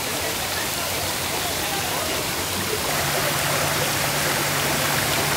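Steady hiss of rushing water, with faint voices underneath. A low steady hum joins about three seconds in.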